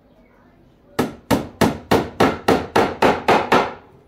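Hammer driving a nail into wood, about ten quick blows roughly three a second, starting about a second in.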